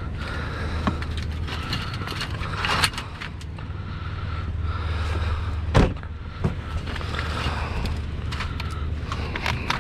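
Vehicle engine idling with a steady low hum, while knocks, scrapes and clatter come from items being handled and shifted; the loudest knock is about six seconds in.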